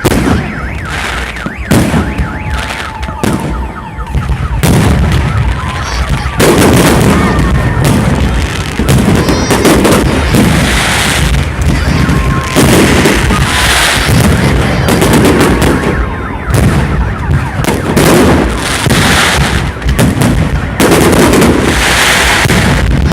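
Fireworks salute: booming shell bursts and crackling bangs, scattered at first and then, about six seconds in, overlapping into near-continuous volleys.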